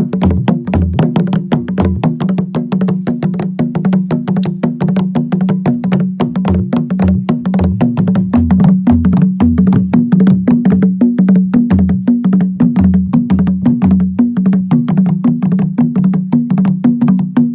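Drums playing a fast, dense Acholi-style rhythm: rapid sharp clicking strokes over a ringing lower drum tone, with deep bass strokes coming and going. The playing gets a little louder about halfway through.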